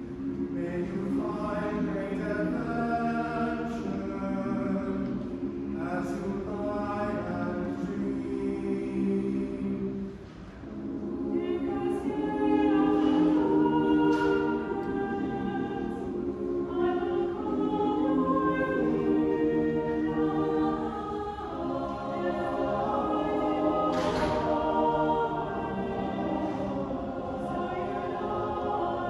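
Mixed-voice choir of men and women singing a cappella in sustained chords, with a short breath about ten seconds in and a louder passage just after.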